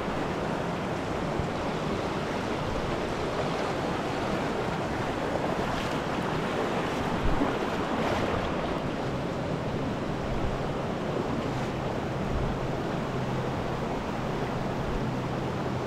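Steady rush of a shallow mountain creek running over rocks and riffles, with one brief bump about seven seconds in.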